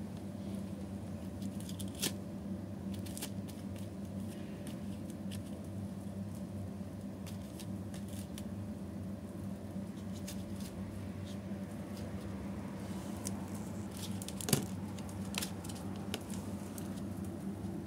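Light, scattered clicks and taps as a kitten paws and claws at a plastic tray and a wire pen, with one sharper knock near the end, over a steady low hum.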